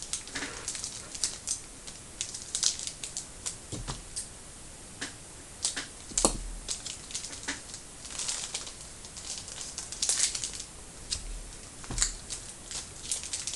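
Trading card packs being opened and handled: irregular crinkling of wrappers and quick clicking flicks of cards being sorted, with a few soft knocks on the table.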